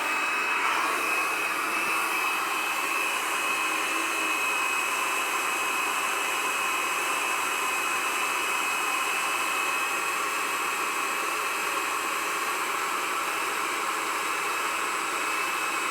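Hot air gun blowing steadily, a constant rush of air with a steady high whine. It is drying a rain-soaked distributor and uninsulated ignition wires, the damp ignition being taken for the cause of a no-start.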